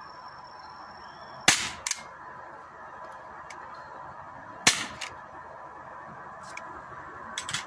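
Two shots from a low-powered air pistol or airsoft pistol, about three seconds apart. Each sharp crack is followed a fraction of a second later by a quieter second crack, and a couple of faint clicks come near the end.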